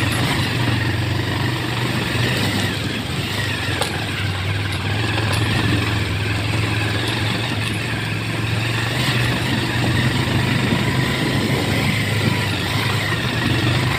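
A vehicle's engine running with a steady low hum, with road noise as it travels over a rough, rocky dirt road.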